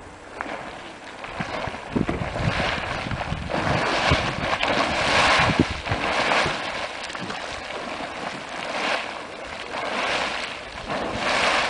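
Hot spring boiling up in bursts at the centre of its pool, the water surging and splashing in uneven waves of sound, loudest a few seconds in and again near the end.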